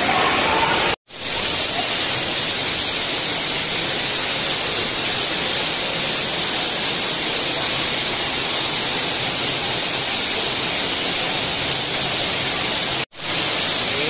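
Steady rush of a waterfall pouring onto rock and into a pool, close by. The sound cuts out abruptly for an instant twice, about a second in and near the end.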